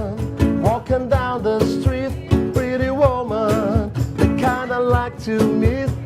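A band playing a song: drums keep a steady beat under a wavering, vibrato-laden lead melody.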